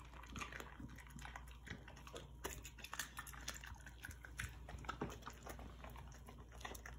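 Siberian husky licking and picking up spilled food from the floor: a run of faint, irregular small clicks and mouth smacks.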